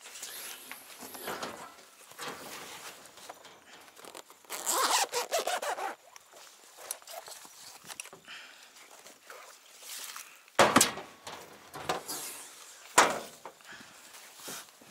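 A galvanised-metal storage box on a small truck's bed being handled: scraping and rattling, a louder scraping stretch about five seconds in, then two sharp knocks about two seconds apart as the metal lid is brought down and shut.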